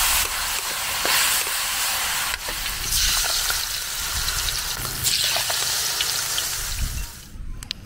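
Food frying in a wok: ground beef stirred with a metal spatula, then battered kangkong (water spinach) leaves deep-frying in bubbling oil, with a dense steady sizzle. The sizzling cuts off about seven seconds in, leaving a few sharp clicks.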